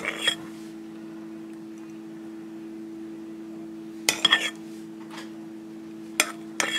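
A metal spoon clinking against a glass bowl and a glass cup a few times while scooping whipped cream onto a brownie, with a cluster of clinks about four seconds in and more near the end.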